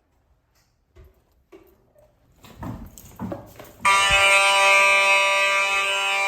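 Fire alarm horn sounding a loud, steady buzzing tone that starts suddenly about four seconds in. It is preceded by a few faint knocks and some handling noise.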